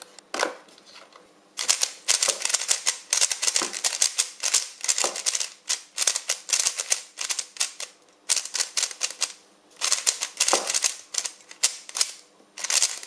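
Fast clicking and clacking of a MoFangGe Thunderclap V2 3x3 speed cube's plastic layers being turned quickly by hand, in several long runs broken by brief pauses.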